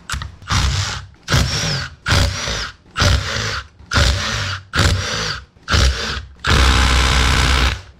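Cordless power driver backing out the crankcase bolts of a two-stroke snowmobile engine, in about eight short runs of under a second each, then one longer run near the end.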